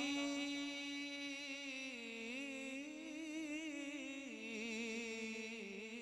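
A male voice in naat recitation holding one long sung note, its pitch wavering slowly up and down.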